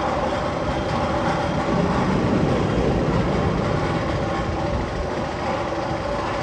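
Steady rumble of a Magnum XL 200 roller coaster train running on its steel track, with a faint steady hum above the noise.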